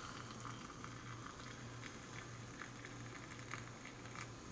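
Boiling water poured slowly from a kettle into a glass mason jar packed with birch twigs: a faint, steady trickle.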